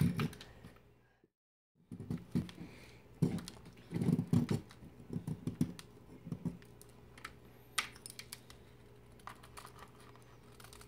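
A freshly cast plaster volcano being scraped with a small hand tool to take off the mold lines and leftover mold: irregular small clicks, scrapes and crackles of plaster flakes. The sound cuts out completely for under a second, about a second in.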